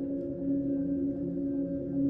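Background music: a slow ambient tune of held low notes with a soft pulsing beneath.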